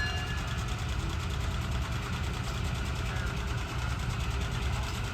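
An engine idling steadily, a low, even rumble.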